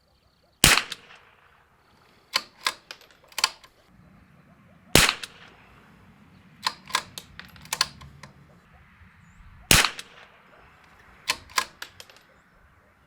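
.22LR bolt-action rifle (Zermatt Rim-X action) firing RWS R50 fouling rounds: three sharp shots about four and a half seconds apart, each followed by a quick group of three lighter clicks as the bolt is cycled. These are fouling shots to re-foul a freshly cleaned chamber after carbon ring removal.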